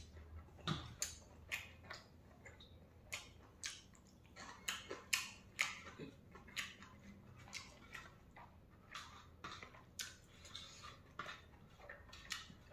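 Faint eating sounds from a man eating rice by hand from a steel plate: irregular soft clicks and smacks of chewing, about one or two a second.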